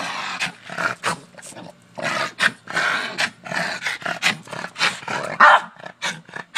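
Boston terrier barking and growling in a quick, irregular string of short bursts.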